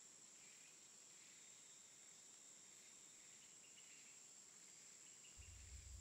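Near silence: faint steady hiss between repetitions of the spoken phrase.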